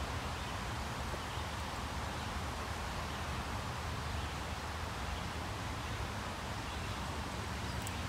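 Steady outdoor background noise with a low rumble and no distinct events.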